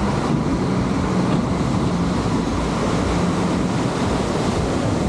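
Steady wind buffeting the camera microphone, a loud, even rumble with no break.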